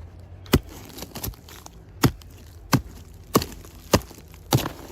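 Repeated sharp blows on dead, termite-eaten tree wood, about seven strikes roughly two-thirds of a second apart, breaking away the rotten outer part of the trunk.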